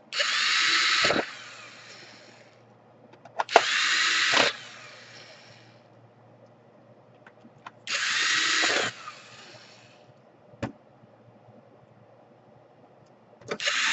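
Electric screwdriver driving screws into a laptop's case in short runs of about a second each, four times, each of the first three stopping with a click as the screw seats.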